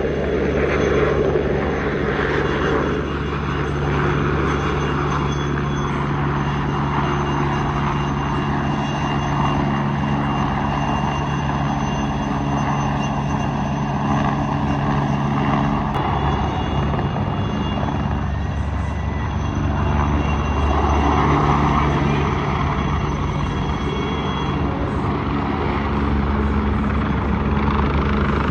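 Aircraft engines droning steadily and loudly overhead, with several held low tones under a noisy rush that swells a little a few times.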